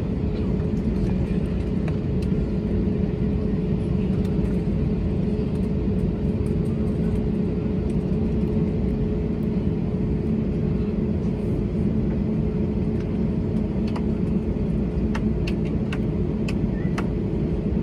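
Cabin noise of an Airbus A321neo taxiing: a steady low rumble with a constant hum from its CFM LEAP-1A engines at taxi power. A few light clicks or rattles come near the end.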